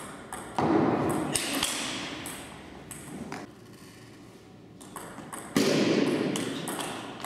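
Table tennis rally: the ball clicks sharply off the bats and the table in quick succession. Two louder, duller bursts come about half a second in and again near six seconds.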